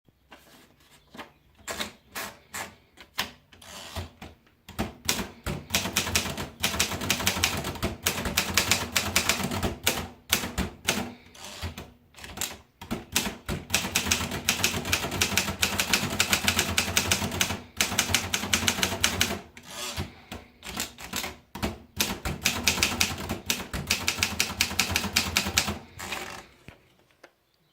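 Olympia SM1 manual portable typewriter being typed on: rapid runs of key strikes with brief pauses between them, stopping shortly before the end.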